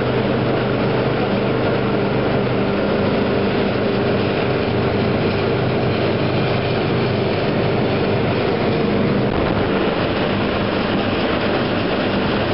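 Jet boat running at speed, heard from on board: a steady engine drone over the rush of water.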